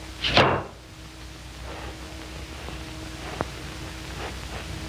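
Steady hiss and faint hum of an early sound-film soundtrack. There is a short, loud burst of noise about half a second in and a single click later on.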